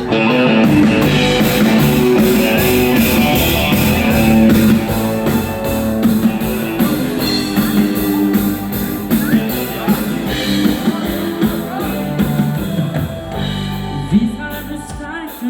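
A dance band playing a song's intro on drum kit and guitar, with a steady beat, before the lead vocal comes in.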